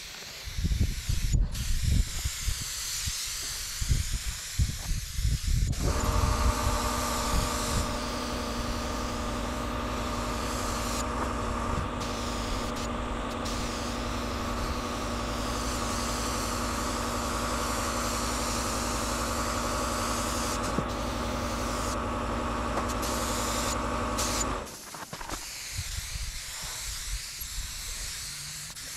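Compressed-air paint spray gun hissing as paint is sprayed, in uneven bursts at first. About six seconds in a steady motor hum with a fixed pitch starts under the hiss. It cuts off suddenly near the end, leaving a quieter hiss.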